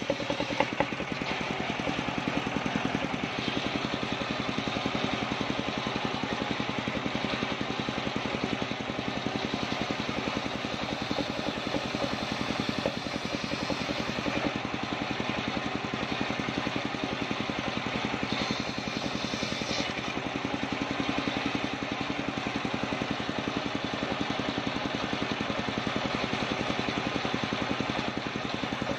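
Large table-mounted circular saw running at a steady drone while its blade rips soft kapok (randu) wood lengthwise into boards.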